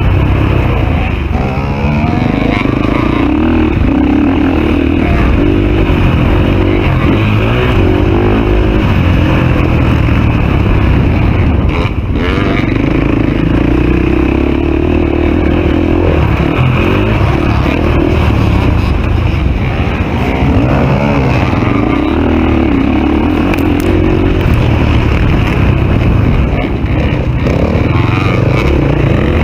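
Dirt bike engine, heard from the rider's own bike, revving up and down continuously as it is ridden hard around a motocross track, with a heavy low rumble underneath.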